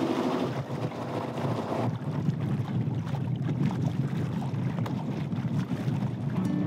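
Small sailboat under way on its engine: a steady low rumble, with wind buffeting the microphone.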